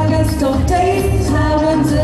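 A girl singing a song solo into a microphone, holding and sliding between sustained notes over instrumental backing music with a steady beat.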